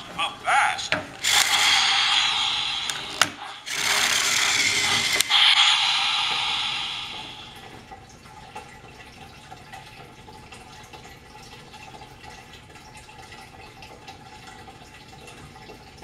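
Battery-powered Trackmaster toy engine's motor and gears whirring as it runs on plastic track, with a faint whine, then winding down and stopping about seven to eight seconds in. A faint steady hiss remains afterwards.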